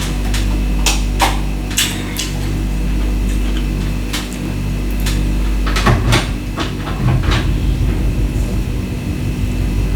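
Ice being bitten and crunched with the teeth: sharp, separate cracks at uneven intervals, a cluster of them about six seconds in, over a steady low hum.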